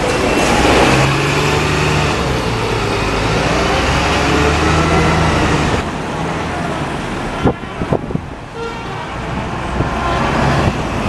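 City-street road traffic: vehicle engines droning steadily for about six seconds, then lighter traffic with a box van and a single-deck bus passing, and a few sharp knocks around two thirds of the way through.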